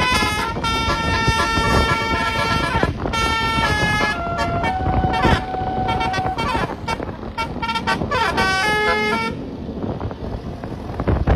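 Telolet basuri bus horn playing a tune: held horn notes that step from pitch to pitch, several tones at once. It stops about nine seconds in, leaving a noisy rush.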